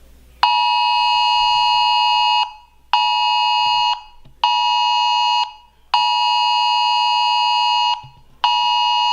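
Wireless Emergency Alert attention signal: a loud, harsh two-tone alarm blaring in a repeating pattern of one long blast and two short ones, with half-second gaps between blasts.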